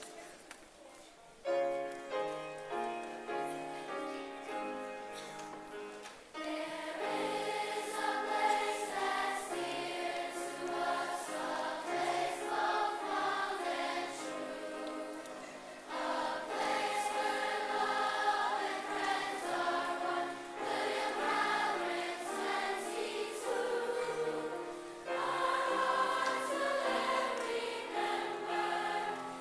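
School choir singing the school hymn. The voices come in about six seconds in, after a short instrumental introduction of struck, fading notes.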